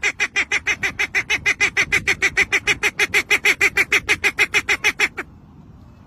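A bird calling in a fast, even series of short honking notes, about eight a second, which stops about five seconds in.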